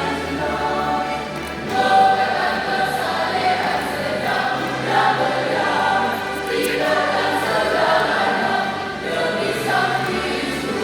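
Junior high school choir singing.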